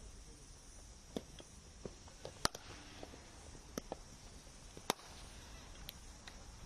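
Sharp cracks of cricket balls being struck in practice nets, irregularly spaced: two loud ones about two and a half and five seconds in, with fainter knocks between.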